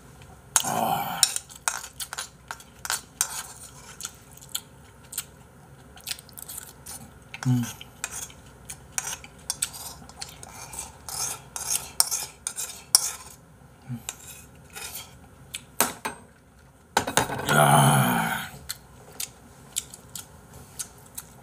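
Metal cutlery clinking and scraping against a bowl as someone eats rice from it: many short clicks, with two longer, louder spells about a second in and near the end.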